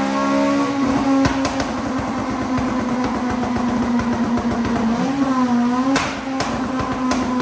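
Tuned Honda Civic Type R FN2's K20 four-cylinder engine held steadily at high revs with rapid crackling pops from the exhaust. Its pitch dips briefly and recovers around five seconds in, and a single sharp bang comes about six seconds in.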